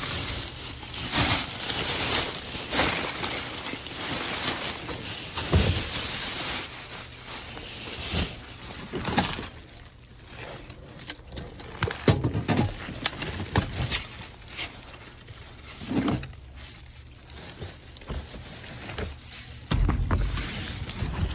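Rummaging through plastic trash bags in a dumpster: plastic rustling and crinkling with scattered knocks and thumps over a steady background hiss.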